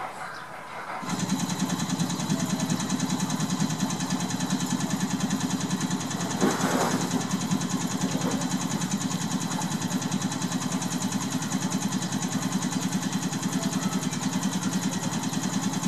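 A small engine running steadily, with a fast, even pulse. It starts abruptly about a second in and holds unchanged.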